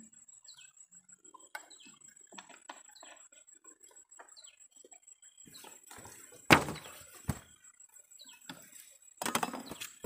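Rustling and knocking as a plastic basket and dry rice stalks are handled, loudest in a burst about six and a half seconds in and a longer one near the end. Short bird chirps come every second or two over a steady high-pitched tone.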